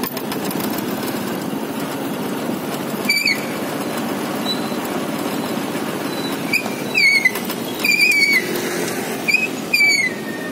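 A vehicle engine running steadily on the move, with several short high squeals, each about a third of a second and several dropping slightly in pitch: one about three seconds in and several more in the second half.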